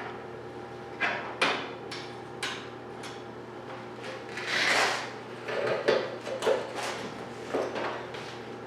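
Scattered knocks and clatter of metal pieces and tools being handled on a workbench, with a brief hiss-like rush about four and a half seconds in, over a faint steady hum.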